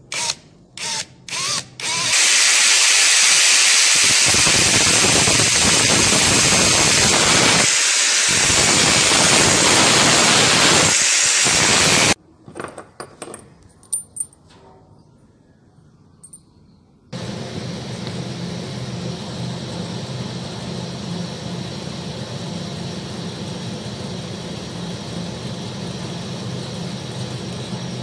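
Handheld power drill boring into a wooden strip held in a vise: a few short trigger bursts, then a long continuous run of about ten seconds that stops suddenly. After it come a few light handling clicks, and from about two-thirds of the way through a steady low hum.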